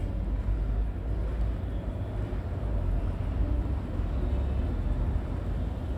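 Steady low background rumble, an even noise with no distinct events.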